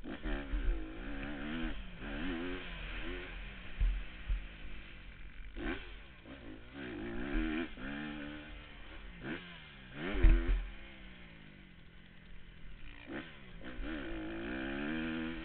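Motocross dirt bike engine revving hard, its pitch climbing and dropping over and over as the rider works the throttle and gears around the track. A few heavy low thumps or buffets come through, the loudest about ten seconds in.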